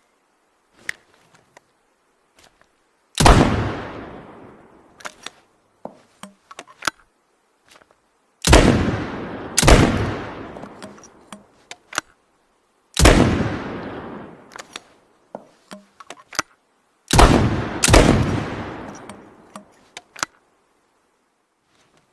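Makeshift double-barrel shotgun sound effect: six loud blasts, each with a long fading echo. They come as one shot, then a pair about a second apart, then one shot, then a pair close together. Small clicks and knocks sound between the blasts.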